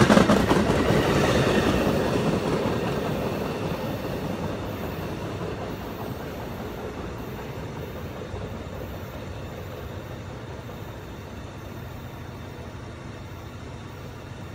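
Amtrak passenger train's rear cars rolling past on the rails, loudest at the start, then fading steadily as the train draws away down the track.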